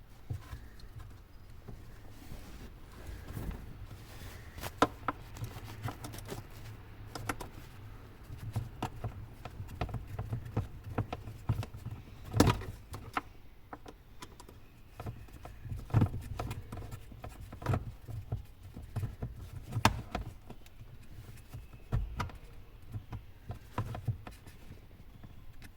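Scattered clicks and knocks at irregular intervals, the loudest about halfway through, as metal and plastic parts and tools are handled during work on the car's ignition switch, over a low steady hum.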